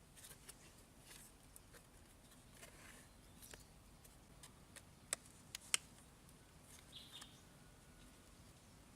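Near silence with faint scattered clicks, three sharp ticks in quick succession about five seconds in, and a brief high chirp near seven seconds.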